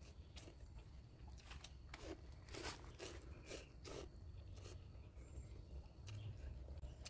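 Faint slurping and chewing as a person eats instant noodles with chopsticks. There is a quick run of short slurps, most of them in the first five seconds.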